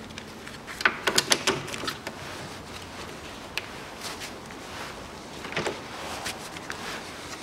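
Socket ratchet clicking as the bolt of an anti-roll bar bushing clamp is undone: a quick run of clicks about a second in, then scattered single clicks.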